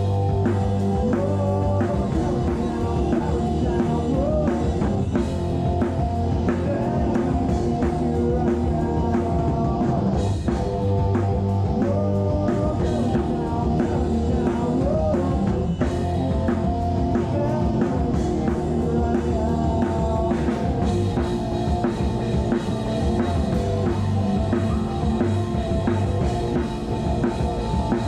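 A rock band playing live, with the drum kit loudest because the recording is made right beside it, under sustained electric guitar.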